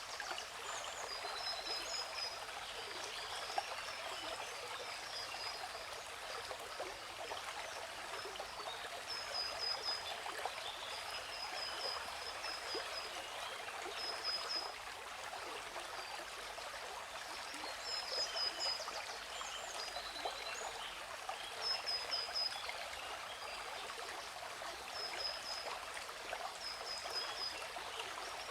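Steady rush of a waterfall, even and unbroken, with small birds chirping over it in short, high, repeated phrases every second or two.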